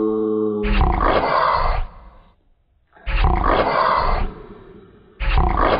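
A harsh, growling roar, heard three times, each about a second long, with short pauses between.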